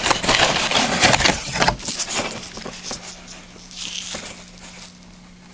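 Rustling and knocking of aerial firework shells being handled and turned over in a cardboard box. The noise is dense for about the first two seconds, then dies down to a faint rustle with a low steady hum.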